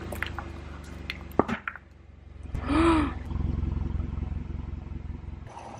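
Thin shells of Hatchimals CollEGGtibles toy eggs cracking under a car tire, a quick cluster of sharp cracks with the loudest about a second and a half in, over the steady low hum of the car's idling engine. About three seconds in comes a short voice sound that rises and falls in pitch.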